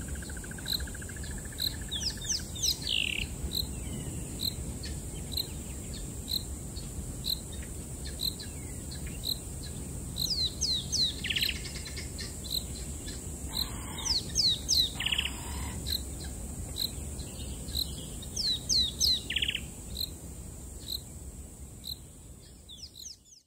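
Bush ambience at dusk: a steady high insect drone with a short chirp repeating about once a second, and several bursts of quick, high, descending bird-like calls. The sound fades out near the end.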